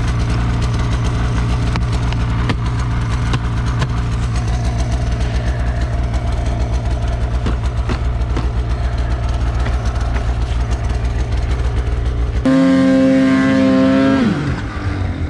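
Polaris RMK snowmobile's two-stroke engine idling with a fast, steady pulse. Near the end the throttle is opened and the engine revs up sharply, holds for about a second and a half, then drops back toward idle.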